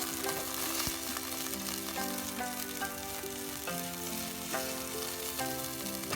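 Food sizzling in hot oil as it is stir-fried and stirred in a pan, a steady hiss throughout, with background music playing over it.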